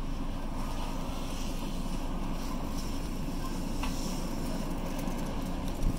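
Fire engine at a working vehicle fire, its engine and pump running in a steady low rumble, with a short click about four seconds in.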